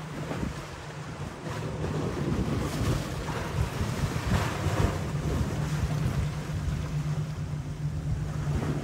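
Wind buffeting the microphone over rushing surf, with a steady low hum underneath and the rush swelling a few seconds in.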